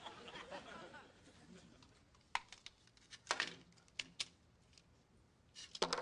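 Studio audience laughter dies away in the first second. Then come a few sharp, irregular clicks and clacks as small objects are handled on a wooden table, with a quick cluster of them near the end.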